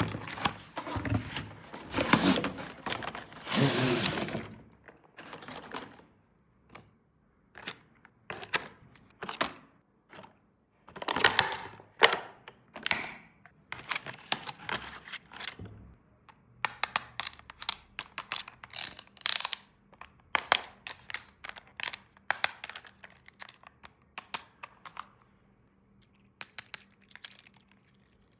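Small plastic toy pieces being handled, giving a run of irregular clicks and taps, with crinkly rustling of packaging in the first few seconds and again about twelve seconds in.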